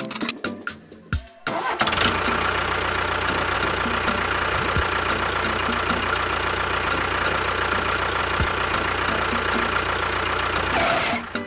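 An engine running steadily. It comes on sharply about two seconds in and stops just before the end.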